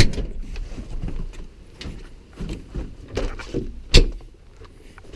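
Scattered knocks and clunks over a low rumble, with one loud bang about four seconds in.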